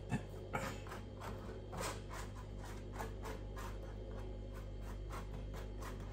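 Table knife spreading tomato relish over a naan bread: a run of soft scraping strokes, about three a second, strongest in the first couple of seconds.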